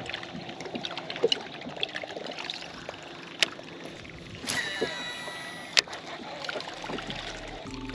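Small water splashes and knocks around a bass boat, then a baitcasting reel's spool whirs with a falling pitch as a lure is cast, about four and a half seconds in. A single sharp click follows about a second later as the reel is cranked to start the retrieve.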